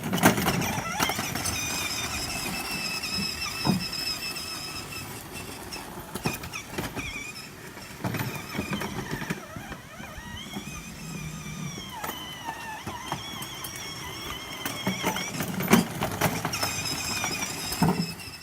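Small electric motor of a 12-volt ride-on quad whining as it drives, its pitch rising and falling with speed, with scattered knocks and rattles.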